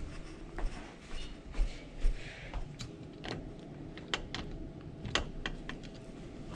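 A run of irregular sharp clicks and light knocks, bunched most thickly in the second half, with a few dull thumps in the first two seconds: handling noise around a door with a metal lever handle.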